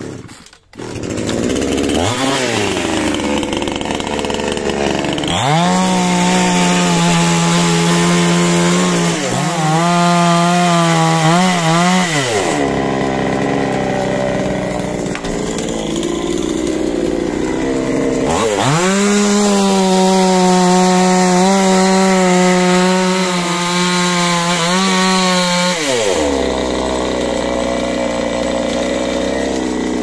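Gasoline chainsaw cutting through a coconut palm trunk: two long stretches at full throttle under load, each about seven seconds, with the saw dropping back to idle between them and after.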